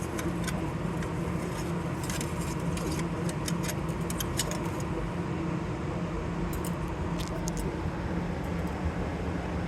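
Scattered light metallic clicks and rattles of hands working inside a pizza prep cooler while its thermostat capillary tube is fed and pulled through, over a steady machinery hum with a low drone.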